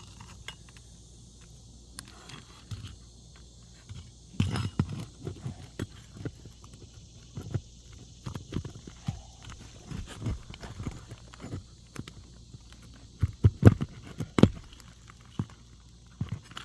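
Roof hatchet working under three-tab asphalt shingles: irregular knocks, clicks and scrapes as the shingles are pried up and their seals broken, with louder knocks about four seconds in and a cluster near the end.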